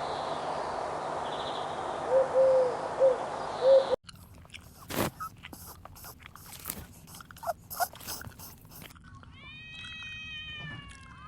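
Animal sounds in three short clips: first repeated short low calls over steady background noise, then crunching clicks like an animal chewing, then a cat meowing with drawn-out, falling calls near the end.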